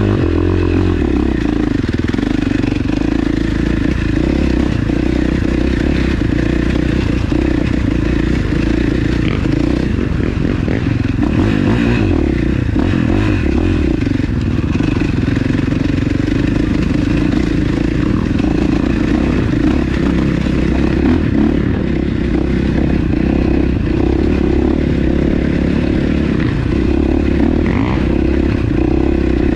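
Yamaha Banshee 350 ATV's two-stroke twin engine running steadily and loudly while riding a trail, with rattles and clatter from the machine.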